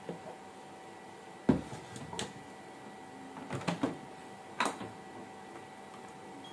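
Electric rice cooker's hinged lid shut with a sharp clunk about a second and a half in, then a few lighter clicks and knocks as the cooker is handled and its control panel pressed.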